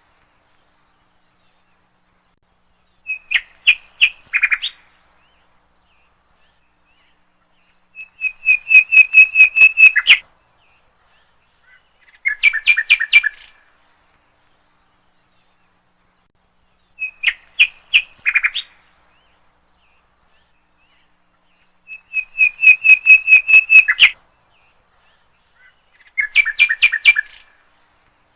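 A bird chirping in short, rapid phrases of repeated notes, about six phrases, each separated by a few seconds of silence. The same three phrases come round again identically about every 14 seconds, like a looped birdsong recording.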